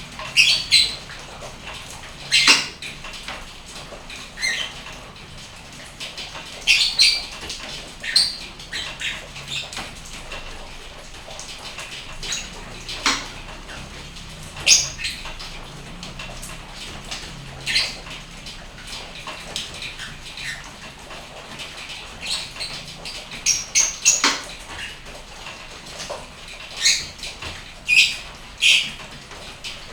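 Steady rain, with frequent short, sharp high-pitched sounds scattered throughout, a few every couple of seconds.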